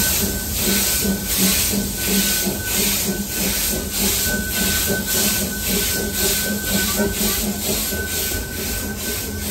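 Small coal-fired steam locomotive chuffing at a steady slow pace, its exhaust beats coming about three a second over a constant steam hiss, heard from the train it is pulling. A faint high thin tone comes and goes in the background.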